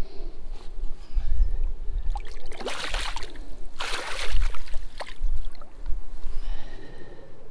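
Water sloshing in a landing net while a small pike is unhooked in the water, with two loud splashes about three and four seconds in, over a low rumble.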